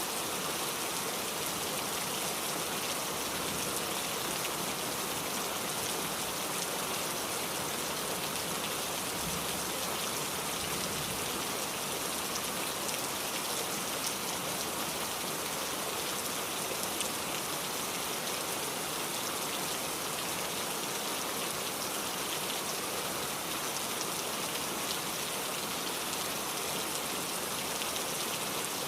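Steady rain falling, an even hiss of many drops with occasional faint individual ticks.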